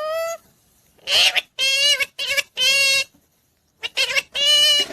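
Indian ringneck parrot giving a run of short, high-pitched, speech-like calls, about seven in all, with a pause of about a second in the middle.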